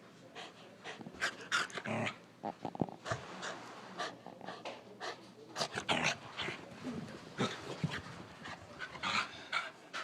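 A small-to-medium dog in a post-bath frenzy, making quick, irregular bursts of breathy panting and scuffling noise, with a short low growl-like sound about two seconds in.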